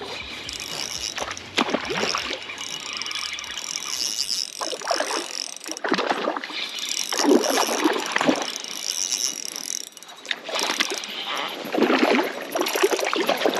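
A hooked trout being played in on a spinning rod: the reel is cranked while the fish thrashes and splashes at the water surface in several irregular bursts, with heavy splashing near the end as it comes in close.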